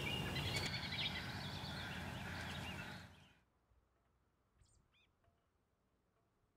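Outdoor ambience with birds chirping over a steady background hiss, fading out a little after three seconds in, leaving near silence with a few faint chirps.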